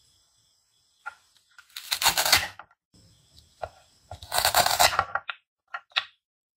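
Hook-and-loop velcro ripping apart twice, about a second each, as a plastic toy knife cuts through a velcro-joined toy strawberry. A few light clicks near the end as the plastic halves are set down on a wooden cutting board.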